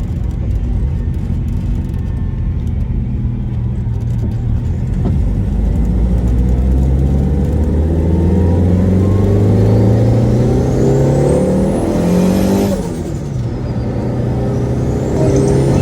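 Turbocharged car engine under hard acceleration, its pitch climbing steadily with a high turbo whistle rising alongside. About three-quarters of the way in the throttle lifts for a gear change, with a short turbo flutter, and the engine and whistle then climb again in the next gear.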